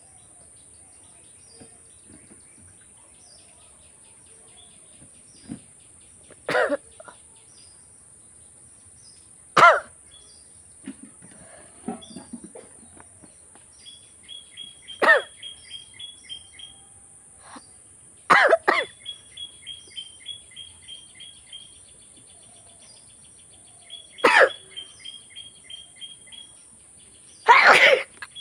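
A woman sneezing hard about six times, a few seconds apart, forced by tickling the inside of her nostril with a bamboo twig. Between the sneezes a bird sings a fast run of repeated high notes through the second half.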